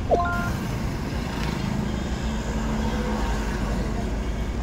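Steady low rumble of car cabin noise, with a short rising three-note electronic chime right at the start.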